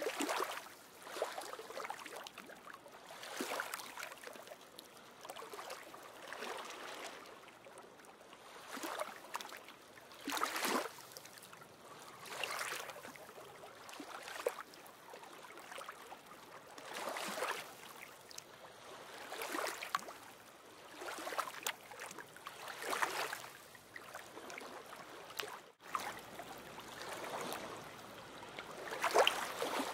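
Small waves washing onto a stony lagoon shore, each wave a splashing surge that swells and fades, one every two to three seconds.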